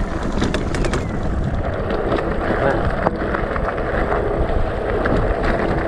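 An electric mountain bike rolling downhill over a rutted, loose gravel track: a steady rumble of tyres on stones, with many sharp rattles and clicks as the bike jolts over the ruts.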